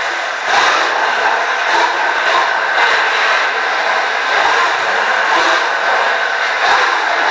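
Wheeled combat robot's electric drive motors and gearboxes running as it drives across a concrete floor: a steady whine over wheel and gear noise, with a brief lull just after the start.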